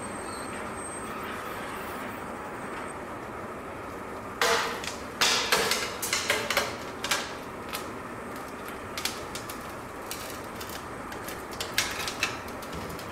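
A steady mechanical rumble, with bursts of irregular clattering knocks about four seconds in and again near the end.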